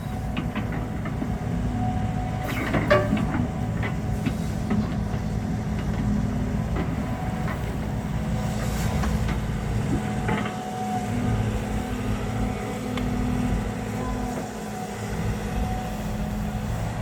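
A heavy diesel engine running steadily with a low hum. A few clicks and knocks come about two to three seconds in.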